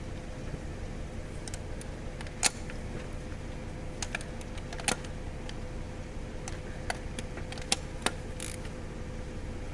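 About a dozen light, sharp clicks and taps at irregular intervals over a steady low hum, typical of tools or parts being handled during hands-on work.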